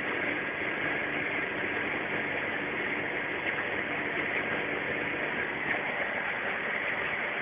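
Ikarus C42 microlight's engine and propeller droning steadily in flight, heard from inside the cockpit with a constant rush of airflow.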